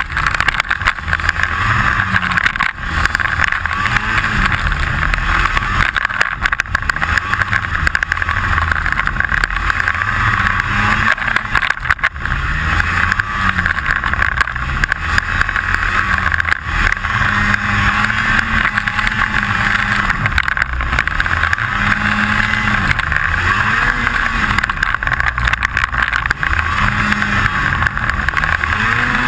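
Snowmobile engine running under way, its pitch rising and falling over and over as the throttle is worked, over a steady high whine. A rattle clicks throughout; the rider does not know its cause.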